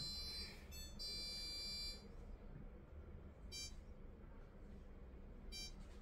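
Whirlpool front-loading washing machine's control panel playing a short electronic tune of high beeping tones that stops about two seconds in, then two short single beeps about two seconds apart as its buttons are pressed during a reset.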